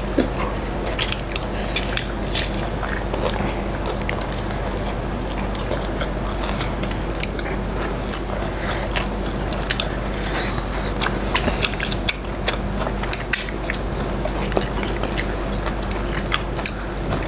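Chewing and biting of crispy breaded fried chicken by several people, with irregular crisp crunches and clicks.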